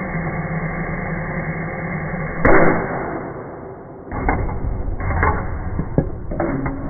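Fidget spinner whirring at high speed, clamped in a bench vise, with a dull, muffled tone. There is a loud knock about two and a half seconds in and a few lighter knocks over the next few seconds.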